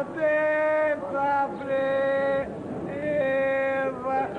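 A voice singing a slow melody in long held notes of about a second each, with short breaks between them; no words can be made out.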